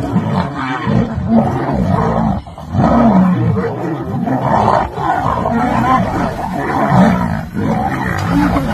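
Lions snarling and roaring: a continuous run of loud, rising-and-falling growls, briefly dropping away about two and a half seconds in.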